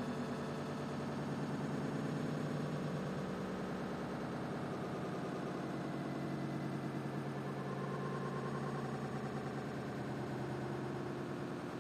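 Steady low mechanical drone with a fast, even flutter, like an idling engine or motor, holding level throughout.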